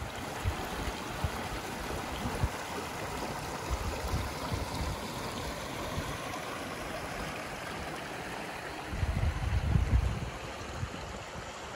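Creek water rushing steadily over granite boulders through small rapids. A short stretch of low rumbling comes in about nine seconds in.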